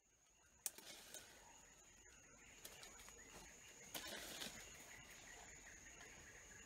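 Quiet rainforest ambience fading in: a steady high insect buzz over a low hiss, with a few sharp snaps and rustles of leaves and twigs, the clearest about a second in and again around four seconds in.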